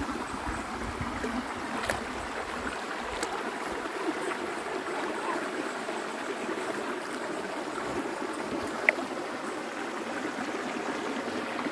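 River water flowing steadily, with a few faint clicks and one sharp click about nine seconds in.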